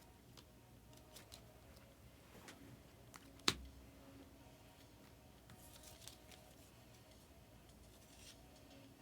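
Quiet room with faint handling noises of trading cards and packs: scattered small clicks and rustles, and one sharp click about three and a half seconds in.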